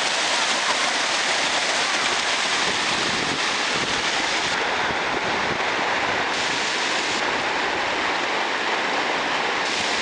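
Steady rush of a shallow rocky river running over rapids, an even hiss of water with no breaks.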